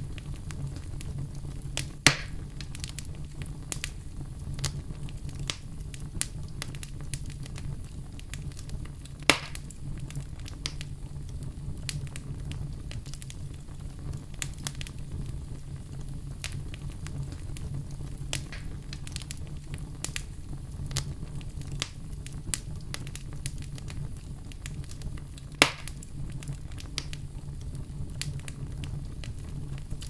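Wood logs burning in a fireplace, crackling continuously over a low steady rumble, with three sharp, loud pops spread through.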